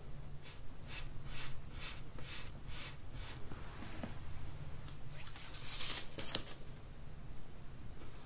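Hands rolling a ball of soft nerikiri bean-paste dough between the palms: a soft rubbing swish about twice a second for the first few seconds. Around six seconds in, a brighter crinkle as a kitchen sheet is handled over the ball.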